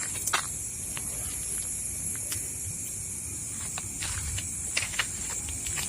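Steady high-pitched chorus of night insects such as crickets, with scattered light clicks and ticks throughout, a few of them sharper, near the start and just before the end.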